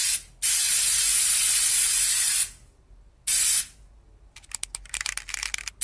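Aerosol spray can spraying in bursts: a hiss of about two seconds, then a short puff, then a quick run of rattling clicks before the next spray starts at the very end.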